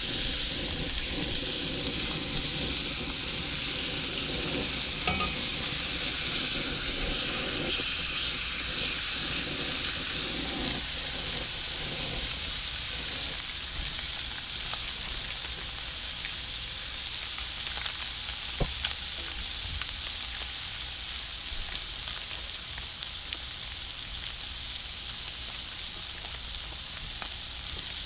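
Blackened catfish fillets sizzling in butter in a hot cast-iron skillet over a propane burner, searing after being flipped. A steady frying hiss that slowly gets a little quieter, with a couple of faint clicks.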